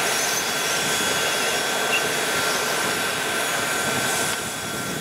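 Steady jet whine and rush from a parked Boeing 777-200 airliner, most likely its auxiliary power unit running at the gate, with several steady high tones over the noise. A brief click comes about two seconds in, and the level dips slightly just after four seconds in.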